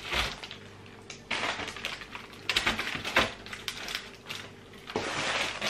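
Plastic bread bags rustling and crinkling as loaves and wraps are pushed into a wire under-shelf basket, with light rattles of the basket, in several short bursts.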